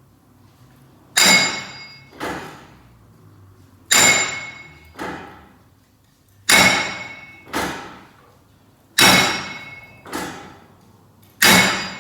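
Hammer blows on steel with a metallic ring. Each loud strike is followed about a second later by a softer one, and the pairs repeat about every two and a half seconds. It is the sound of knocking a rust-seized front wheel hub bearing loose on a 2003 Chevy Tahoe.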